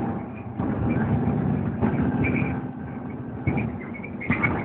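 Volvo B7TL bus's six-cylinder diesel engine running under load, heard from inside the passenger saloon, easing off about two and a half seconds in. A few short knocks and rattles come near the end.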